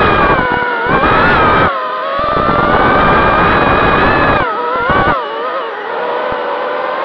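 250-size quadcopter drone's motors and propellers whining in flight, the pitch rising and falling with the throttle, with gusts of low rushing noise cutting in and out. About five seconds in the rushing stops and the whine drops lower and steadier as the throttle eases.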